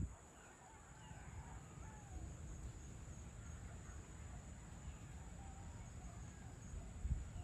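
Faint calls of distant birds, short wavering glides, over a steady low rumble, with a louder low thump near the end.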